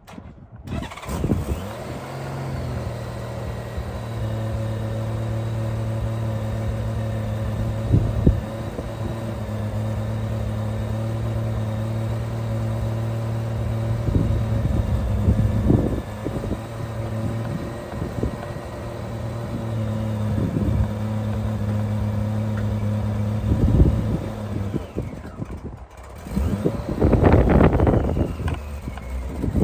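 Honda Goldwing motorcycle engine starting and idling steadily for about 24 seconds, then shutting off, with a few knocks over the idle. The owner says it idles a little on the rough side and thinks the carburetors are gummed up from years of sitting. A burst of noise comes near the end.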